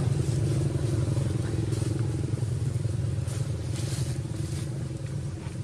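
An engine idles steadily at a low, even pitch, slowly getting quieter.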